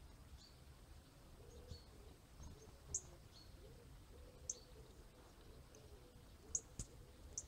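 Near silence with a handful of short, high chirps from a small bird or animal, two of them close together near the end.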